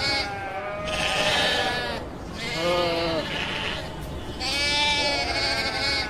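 Sheep bleating repeatedly: about four drawn-out bleats with short gaps, the one in the middle noticeably lower in pitch.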